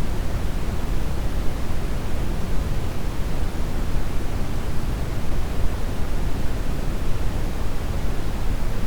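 Steady brown noise: a deep, even rush with most of its energy in the low end, without any change or break.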